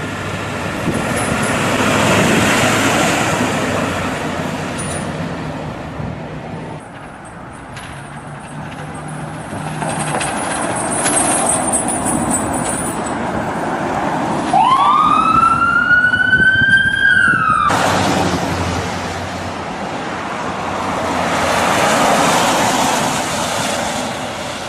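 Road traffic noise swelling and fading as vehicles pass. About fifteen seconds in, an American ambulance siren winds up in pitch for about three seconds, then cuts off abruptly.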